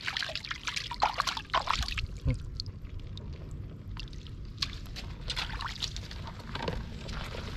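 Shallow floodwater sloshing, splashing and trickling in short, irregular bursts, from wading and groping through it by hand.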